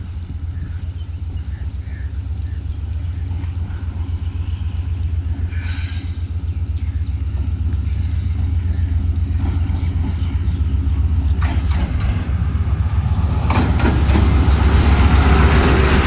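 ZCU-30 diesel-electric locomotive arriving with a passenger train, its engine giving a steady low rumble that grows louder as it approaches. From about thirteen seconds in, the rush of the wheels on the rails swells over it, with a few sharp clanks before that.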